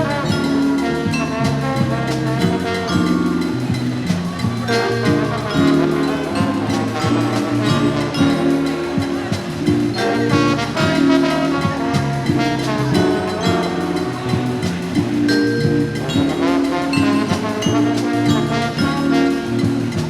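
Jazz music with brass horns and drums, playing steadily.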